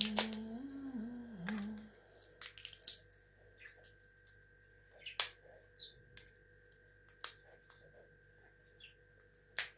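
A knife scoring and peeling the foil capsule on the neck of a glass cognac bottle: scattered small clicks, scratches and tearing sounds, with a sharp click near the end.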